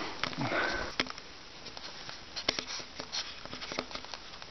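Faint, irregular crunches and clicks of movement on snow, heard over a low hiss.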